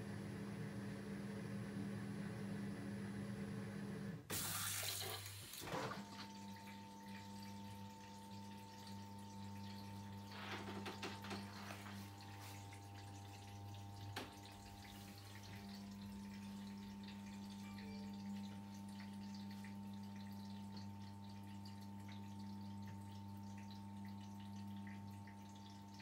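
Bosch dishwasher running: a steady low hum from its pump with water swishing inside. About four seconds in there is a short, louder rush of noise, after which the hum and water sounds carry on.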